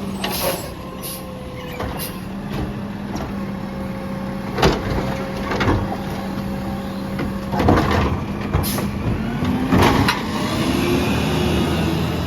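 Heavy truck engine running steadily with a low drone, its pitch rising and falling near the end, and a few sharp knocks along the way.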